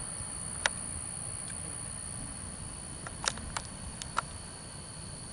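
A few short sharp clicks, one early and a quick cluster of four about three to four seconds in, over a faint steady high-pitched whine and low background rumble.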